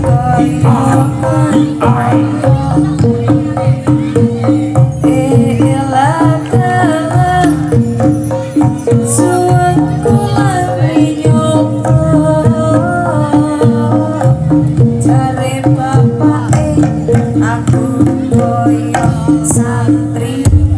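Live Javanese jaranan-style music: hand drums keep a dense, steady rhythm under held tones and a wavering melody line.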